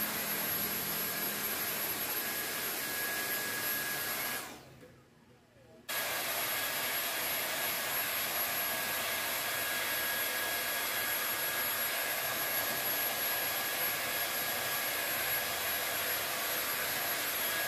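Cordless stick vacuum running steadily with a high whine over its motor noise. About four seconds in, the sound cuts out for roughly a second and a half, then comes back abruptly at the same steady pitch.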